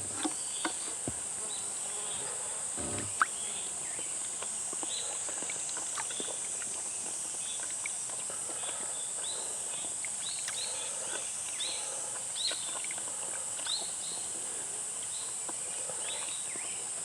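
Steady high-pitched drone of summer insects, with short chirps repeating over it and a few light clicks and knocks, the sharpest about three seconds in.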